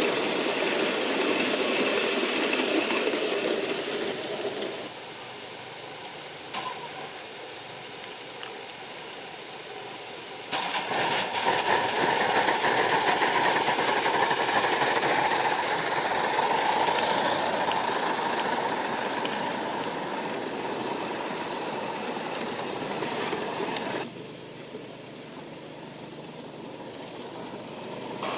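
Pair of 38 class steam locomotives running with a train, giving off steady steam hiss and engine noise. The sound changes abruptly about three and a half, ten and a half and twenty-four seconds in, and is loudest between about ten and sixteen seconds.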